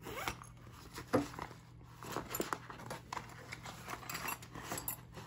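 Handling and rustling of a black cloth tool pouch as it is opened and searched, with small metal tools clinking inside it in scattered light clicks.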